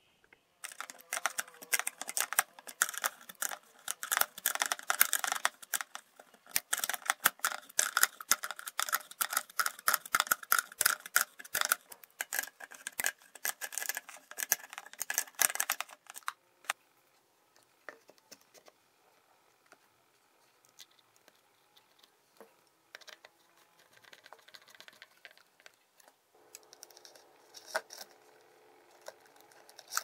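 Rapid, dense clicking and rattling of metal parts and a wrench as the agitator shaft's bearing assembly is fitted and its nuts tightened, for about fifteen seconds. After that only a few light taps, and a faint hum near the end.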